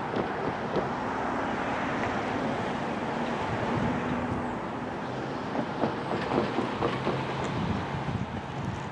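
EMD SD70ACE diesel-electric locomotive, with its 16-cylinder two-stroke 710 engine, running as it hauls a freight train past. A steady engine hum sits over the wheel and rail noise, with scattered clicks, and the hum drops to a lower note about halfway through.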